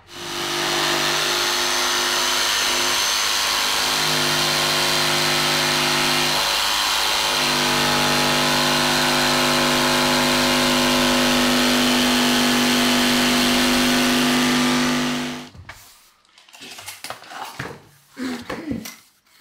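Cordless DeWalt jigsaw cutting a stone-composite-core vinyl floor plank, its motor running steadily for about fifteen seconds, easing twice early on, then stopping suddenly. Faint handling sounds follow near the end.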